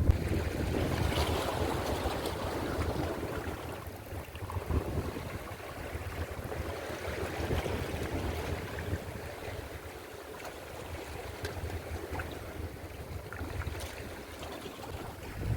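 Strong sea wind buffeting the microphone over a steady wash of surf. The wind rumble is heaviest in the first few seconds, then eases.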